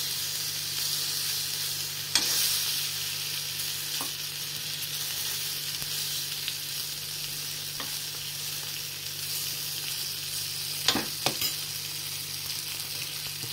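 Spice-coated paneer pieces sizzling steadily as they roast in a little oil in a nonstick pan. A spatula turns them, with a few sharp taps against the pan, two close together near the end.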